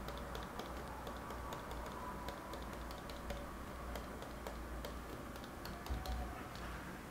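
Plastic stylus nib of a battery-less pen tapping on a pen display's matte glass screen, a run of rapid, irregular faint ticks as dots are stippled onto it.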